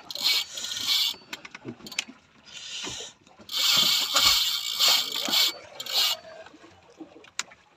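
Spinning reel ratcheting in bursts under the pull of a hooked stingray on a bent rod, the longest burst in the middle.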